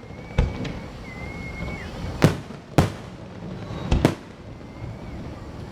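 Fireworks going off: five sharp bangs spread over a few seconds, the last two in quick succession, each with a short echoing tail.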